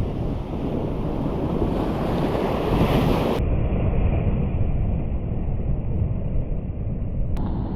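Wind buffeting the microphone over ocean surf washing against the rock shore, a steady rushing noise that turns duller about halfway through.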